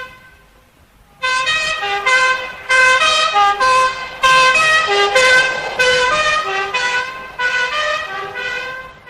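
A melody of held notes in a buzzy, horn-like tone, with no beat, jumping much louder about a second in. It sounds like a musical vehicle horn playing a tune.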